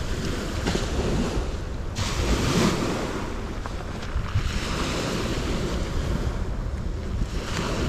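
Small sea waves washing onto a pebble beach, swelling twice, with wind rumbling on the microphone.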